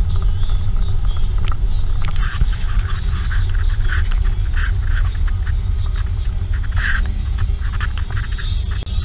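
Jeep Wrangler driving, heard from a mounted camera: a heavy, steady low rumble of road and wind noise, with scattered rattles and a few sharp clicks.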